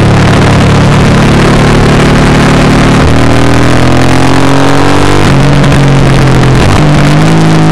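Suzuki M109R's V-twin engine running at motorway speed with wind rush. About three seconds in, its note climbs steadily for about two seconds, drops suddenly, then steps up again near the end.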